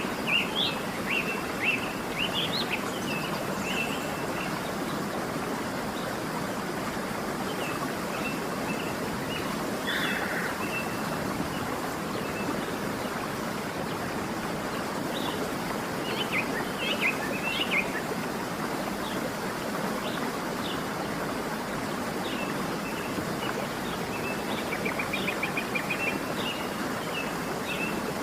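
Waterfall rushing steadily, with birds chirping over it in short bursts of high notes: a cluster at the start, another about two-thirds of the way in, and a quick trill near the end.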